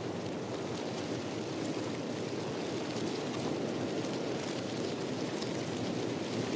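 Steady rain falling, an even rushing hiss with faint scattered drop ticks through it.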